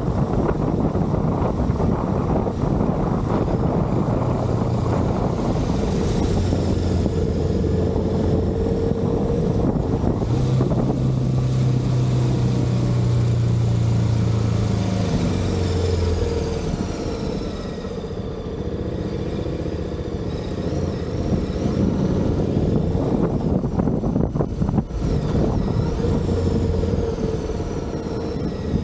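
Motorcycle engine running on the road, with wind noise on the microphone. The engine note steps up about ten seconds in and falls back a few seconds later as the throttle changes.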